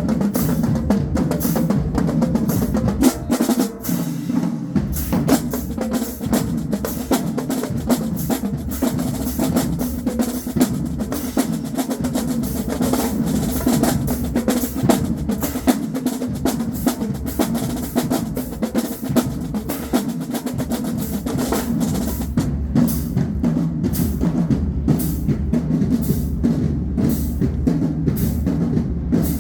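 Marching band drumline playing a cadence, with snare and bass drums beating a fast, steady rhythm.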